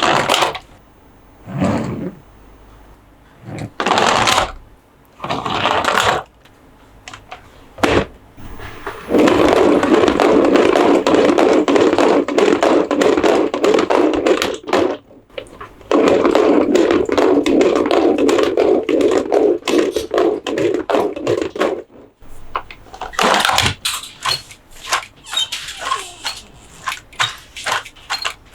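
Hands handling a Monster Jam toy and its packaging: short rustles and knocks, then two long stretches of steady rubbing noise, then a quick run of clicks near the end.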